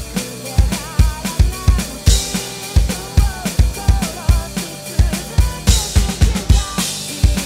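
Electronic drum kit with mesh pads played as a rock beat along with the song's recording: a steady kick drum about two to three beats a second, snare and cymbal hits, with crashes about two seconds in and near the end, over the band and sung vocals.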